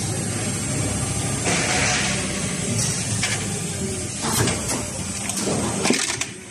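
Injection moulding machine running with a steady machine noise and a hiss about a second and a half in. Near the end come several sharp clanks and knocks as the clamp opens the mould, and then the running noise drops.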